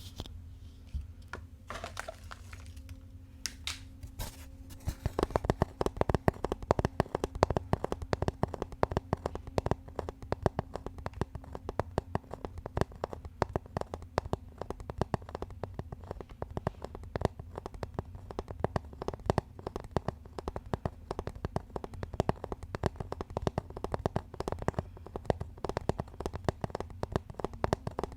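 Fingers tapping rapidly on an object: a few scattered taps at first, then from about five seconds in a fast, continuous run of many taps a second.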